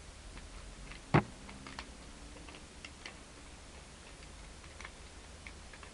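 Plastic tiles of a Rubik's Magic folding puzzle clicking as it is folded and flipped: one sharp click about a second in, then a few scattered faint ticks.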